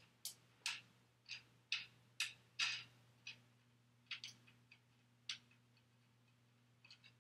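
Wing nut at the top of a backdrop support stand's pole being twisted loose by hand: a run of sharp clicks, about two a second, thinning out after about three seconds, over a faint steady low hum.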